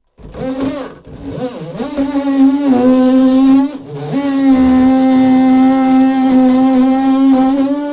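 DeWalt 20V cordless drill running in spurts with a bit in a shower valve. There is a steady motor whine with dips in pitch as the trigger is feathered; it cuts out briefly about a second in and again near four seconds, then runs steadily.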